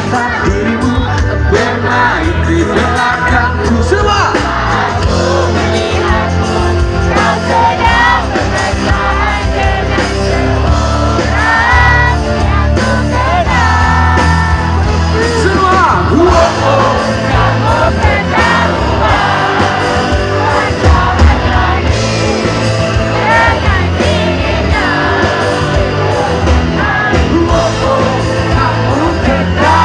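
Live rock band playing a pop-rock song, with a male lead singer over electric guitar, bass and drums, loud and continuous, with some shouting.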